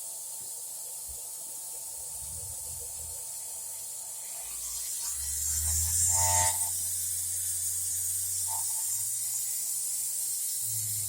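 Home-built CNC router running: a steady high hiss from the spinning spindle, then about five seconds in its drive motors start moving the machine with a low hum that swells briefly and then holds steady.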